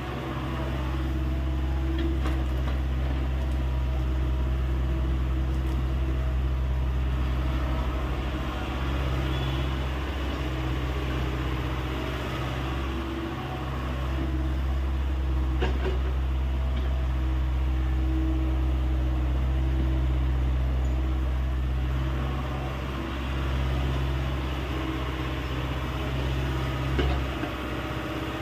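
Hyundai 85A excavator's diesel engine running steadily, its level swelling and easing a few times, with a few faint knocks.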